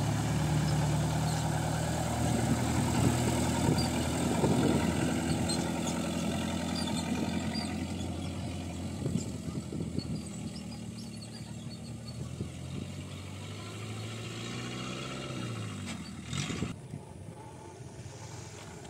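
Motorcycle engine running at a steady pitch, its note dropping as it slows down near the end.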